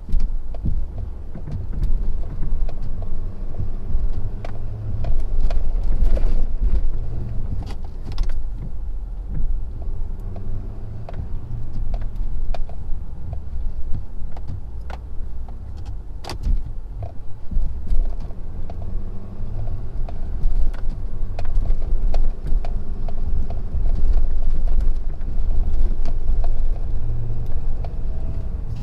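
Ford F-250's Power Stroke diesel V8 working under load in four-wheel-drive low, pushing heavy wet snow with a V-blade plow; the engine note rises and falls, with occasional knocks and clicks.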